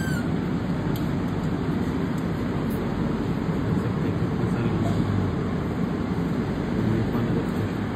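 Steady low rumble and hum of a passenger train, heard from on board a coach.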